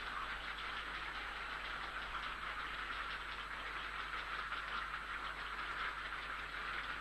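Grey heron nestlings begging, several chicks at once, in a continuous rapid clattering chatter. A low steady hum runs underneath.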